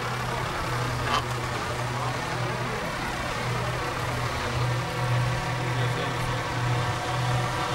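Tractor's diesel engine running steadily at low revs, with a short sharp click about a second in.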